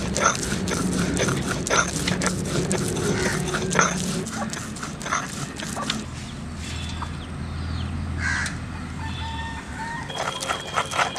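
Stone roller grinding leaves into paste on a flat grinding stone (a Bengali shil-nora), a run of quick scraping and knocking strokes. In the second half the strokes are softer and a few short pitched animal calls sound.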